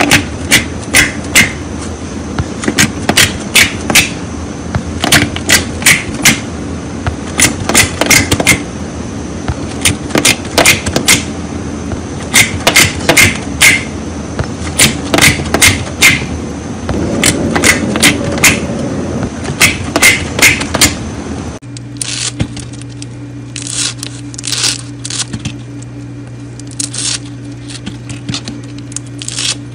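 Fingers poking and pressing glossy slime, which gives off sharp clicking and popping sounds in quick clusters over a steady background hum. About 22 s in the hum changes and the clicks come sparser as a spongy, textured slime is handled.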